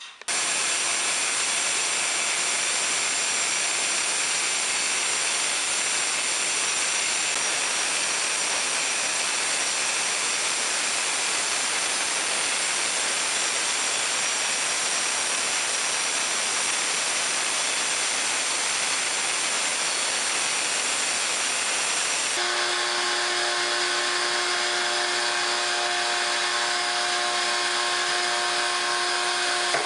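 Power tool running steadily at full speed, a loud even whine with a hiss. About three-quarters of the way through, its tone changes abruptly to a steadier hum.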